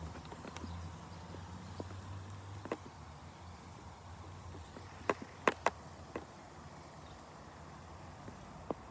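Insects chirring in the summer grass: a steady high-pitched hiss that fades about halfway through, with a few sharp clicks.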